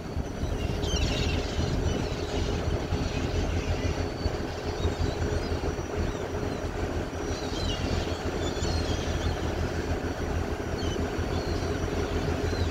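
Steady low rumble of a passenger ferry's engine heard on deck, with faint gull calls about a second in and again around the middle.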